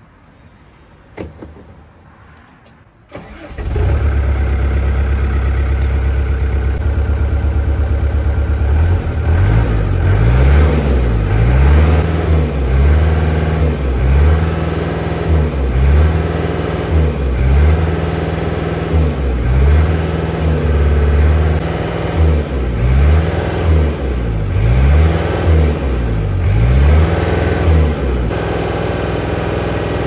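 GEHL 4840 skid steer's diesel engine starting about three seconds in, after a short click, on its first start since a fuel filter change. Its speed rises and falls about every second and a half for some twenty seconds, then it settles to a steady idle near the end.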